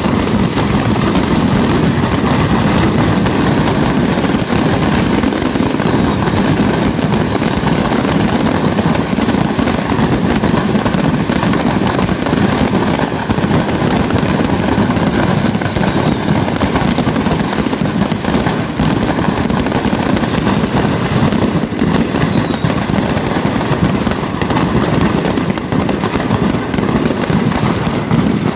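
A large stock of fireworks going off all at once in an accidental fire: a dense, unbroken barrage of crackling bangs and bursts, with a few whistles falling in pitch now and then.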